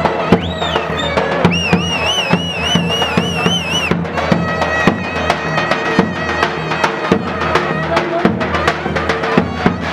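Davul drum and zurna playing a folk dance tune: a high, wavering reed melody over frequent heavy drum strokes.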